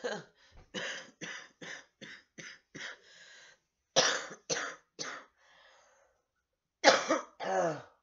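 A woman coughing in hacking bouts into a tissue: a quick run of short coughs, then louder coughs about four seconds in and again near the end. It is a chest cough from a lung infection whose phlegm, she says, won't come up despite prescription cough medicine.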